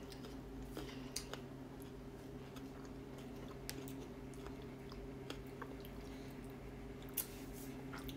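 Soft chewing and squishy mouth and finger sounds of people eating a buttery boiled onion and boiled eggs by hand, with scattered small clicks, the sharpest about a second in and near the end. A steady low hum runs underneath.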